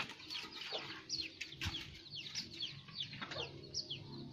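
Birds chirping: a string of short, high calls, each falling in pitch, two or three a second.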